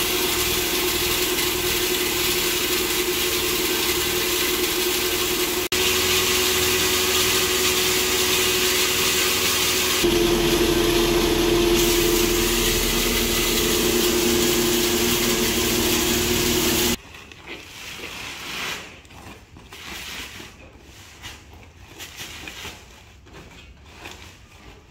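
Electric grain grinding mill running steadily with a constant hum and a grinding rush as it mills dry grain into feed meal. It cuts off abruptly about two-thirds of the way through. Soft, irregular rustling of woven plastic feed sacks follows.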